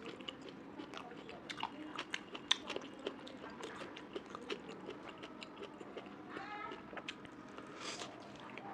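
Close-up eating sounds: a person chewing and biting food, with irregular wet mouth clicks and smacks and some crunching.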